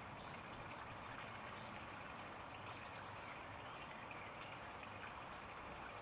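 Faint, steady outdoor background noise with no distinct events.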